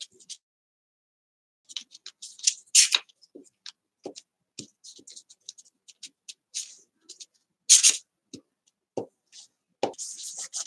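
Hands handling paper cutouts and a glue stick on a desk: scattered light taps, clicks and paper rustles, with two louder clacks about three and eight seconds in, and a steady rubbing of paper being pressed down near the end.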